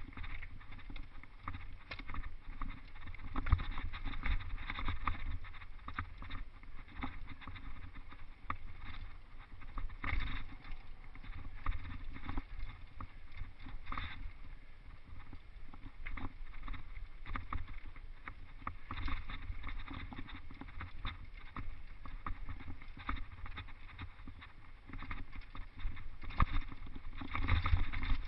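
Mountain bike clattering down a rocky trail: continual irregular knocks and rattles from the bike over rocks and roots, over a low rumble, growing louder near the end.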